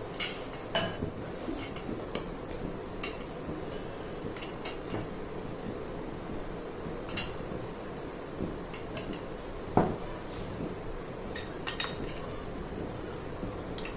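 Metal spoon clinking and scraping against a stainless-steel puttu tube and a glass bowl as jowar flour and coconut are spooned in, in scattered light clicks. A heavier knock comes about ten seconds in, and a quick run of clinks near the end.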